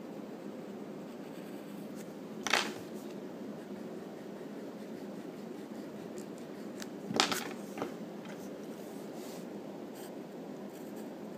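Pencil scratching on drawing paper over a steady hiss, with two brief louder knocks a few seconds apart, the second followed by a smaller one.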